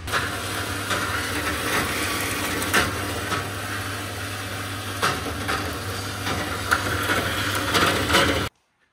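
Horizontal metal-cutting bandsaw running, its blade cutting through steel box section: a steady motor hum under the rasp of the cut, with a few sharp clicks. It stops abruptly near the end.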